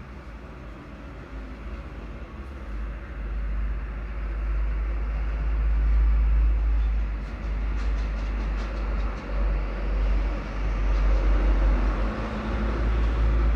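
A low rumble that swells about three seconds in and stays loud, with a few faint small clicks of metal compressor parts being handled about halfway through.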